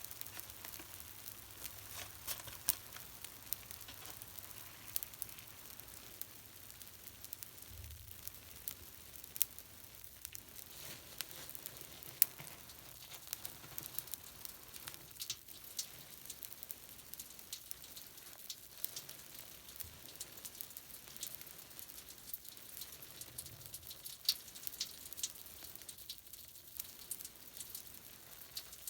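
Cleaning-product foam (Pinalen and a bath cleaner) crackling as its tiny bubbles burst: a faint, steady sizzle made of many irregular little pops.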